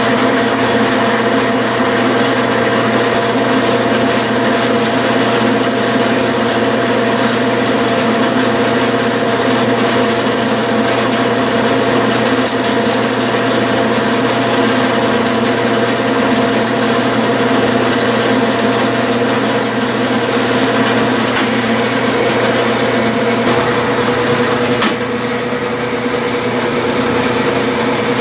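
Clausing metal lathe running steadily under power, spinning a small armature bobbin as magnet wire is wound onto it. It makes a steady hum with several fixed tones, and a thin higher whine joins about three-quarters of the way through.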